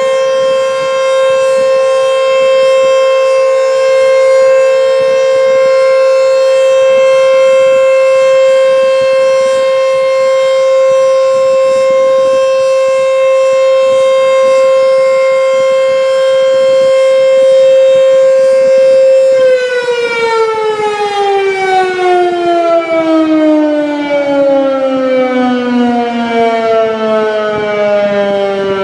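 ACA Screamer S-5 outdoor warning siren sounding a loud, steady tone, held at one pitch for most of the time. About two-thirds of the way through, the pitch starts falling steadily as the siren winds down.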